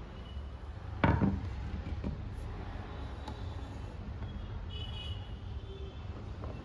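A single sharp knock about a second in, then a softer knock a second later, over a steady low rumble.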